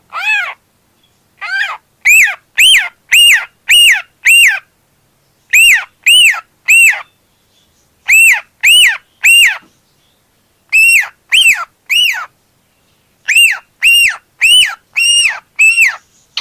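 Cockatiel giving its loud flock call: short chirps, each rising and then falling in pitch, in bouts of three to five at about two a second, with pauses of a second or so between bouts.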